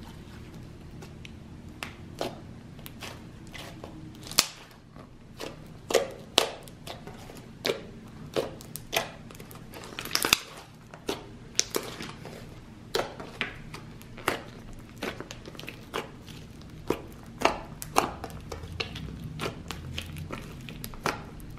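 Thick pink slime being stretched, pressed flat under the palms and poked by fingers. Its trapped air bubbles burst in sharp, irregular pops and clicks, roughly one or two a second.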